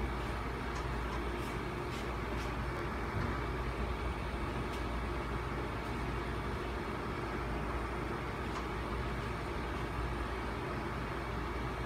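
Steady low rumbling hum of household background noise, with a few faint light clicks in the first few seconds.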